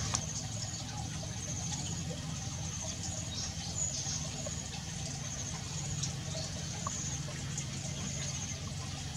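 Outdoor background ambience: a steady low hum with repeated short, high chirping trills over it.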